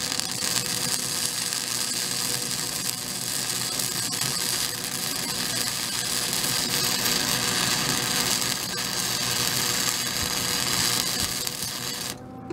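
Wire-feed welder arc crackling and hissing steadily as one continuous bead is run on a steel bumper bracket. The wire is feeding smoothly with the feed clamp just tightened. The arc stops shortly before the end.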